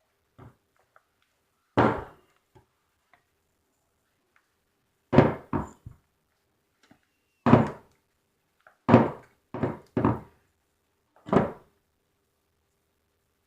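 A series of about eight loud, dull thumps at irregular intervals, several coming in quick pairs.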